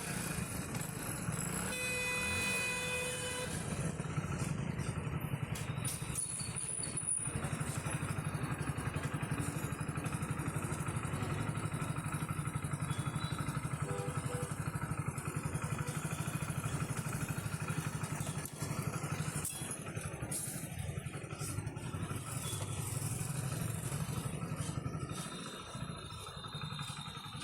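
Hero Splendor motorcycle's single-cylinder engine running steadily with a fast, even exhaust pulse. About two seconds in, a steady tone sounds briefly over it.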